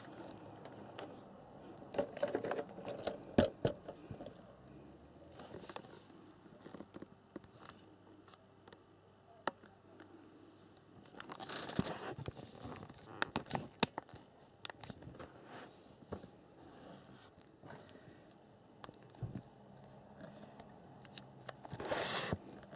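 Handling noises from an RC buggy and its pit stand: scattered light clicks and knocks, with a couple of brief rustles, one near the middle and one near the end.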